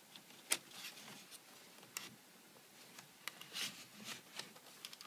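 Plastic clicks and light knocks from a Lenovo IdeaPad Y500's GN36 Ultrabay graphics module being handled and slid into the laptop's bay: several sharp clicks scattered through, the loudest about half a second in.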